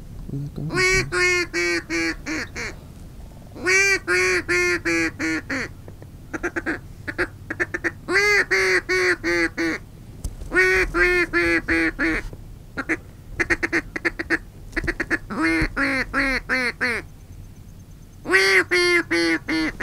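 Duck call blown in a mallard hen's quacking: about eight runs of rapid, evenly spaced quacks, each run one to two seconds long with short pauses between, to bring circling birds in.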